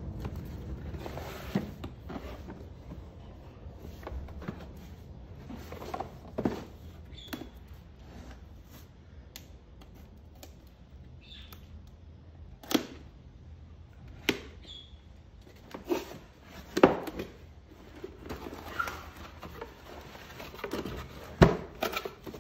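A cardboard box being handled and opened by hand: scattered knocks and thuds of the box on a wooden tabletop, a utility knife slitting its seals, and scrapes and rustles of the flaps and lid as it comes open. The sharpest knocks come about 17 and 21 seconds in.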